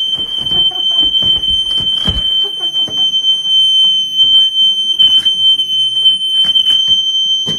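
Smoke alarm sounding one unbroken, high-pitched tone, set off by smoke from a candle that flared up. Scattered knocks and clatter sound beneath it.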